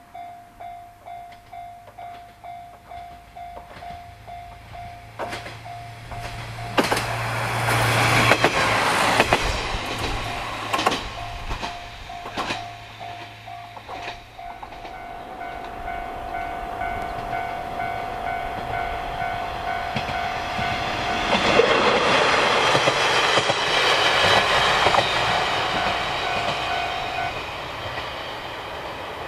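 Single-car JR Shikoku diesel railcars passing: a low engine hum builds, then the railcar goes by with wheels clacking over rail joints, and a second railcar passes later. A high ringing tone pulses about twice a second at first and later sounds steadily until near the end.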